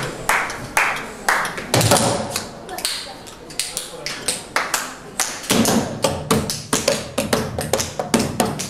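Sharp wooden knocks and taps struck on wooden barrels and boards as percussion: scattered at first, then settling into a quicker, steady rhythm from about five seconds in.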